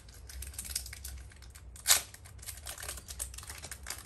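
Pokémon trading cards being handled and slid through the hands: a quick, uneven patter of small card clicks and rustles, with one louder rustle about two seconds in.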